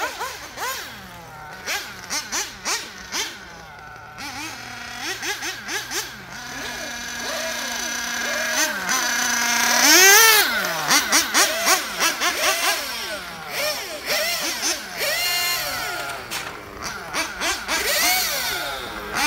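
Small nitro RC car engine (an RB 7T with a 16-tooth clutch bell) revving up and easing off over and over as the car laps the track. It is loudest as the car passes close, about halfway through.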